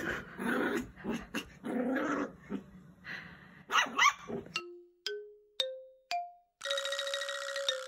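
A puppy growling and yipping as it plays in a frenzy of zoomies, with a short rising squeal near the end of it. The live sound then cuts off and gives way to an added sound effect: four plinking notes climbing in pitch, then a held, bright musical chime.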